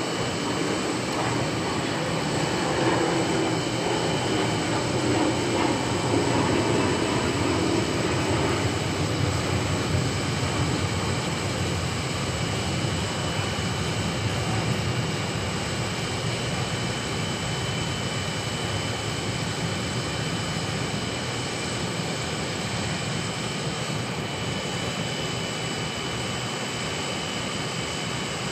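Oxy-fuel cutting torch flame hissing steadily as it burns through the head of a seized excavator track shoe bolt that could not be undone with a wrench. The hiss is a little louder for the first ten seconds or so, then evens out.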